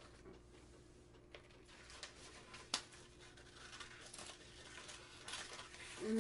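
Scissors snipping through paper, with paper rustling: faint, irregular snips and crinkles and one sharper click near the middle, over a steady low room hum.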